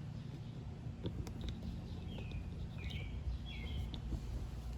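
Steady low hum of room noise with a few faint clicks, and a bird chirping three short times about two to four seconds in.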